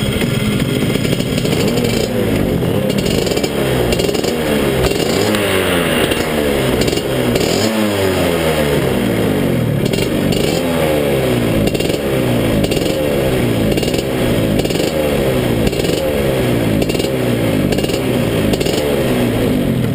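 Rotax DD2 125cc two-stroke kart engine running close behind the driver, its pitch swinging up and down about once a second.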